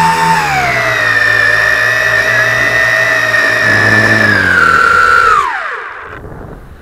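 Tarantula X6 (JJRC H16) quadcopter's motors and propellers whining at a steady pitch, picked up by a camera carried on the drone. About five seconds in, the pitch falls away and the sound drops off sharply as the motors slow.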